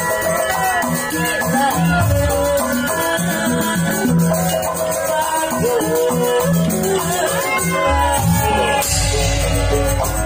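Live Sundanese gamelan music: sustained pitched notes with a sliding melodic line over them and rattling percussion, with heavier low beats about nine seconds in.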